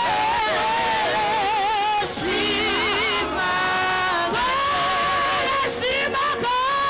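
Worship singing in a church service: voices holding long notes with wide vibrato over music.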